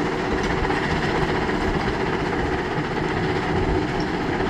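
Heavy diesel construction machinery running steadily with a low rumble.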